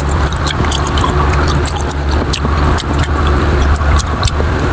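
A steady low rumble runs under a scatter of short clicks and scrapes as a fork picks at takoyaki in a foam takeaway box.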